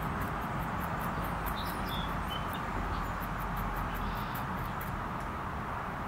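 Steady outdoor background noise with a fast, faint, high ticking, several ticks a second, and a couple of faint short chirps about two seconds in.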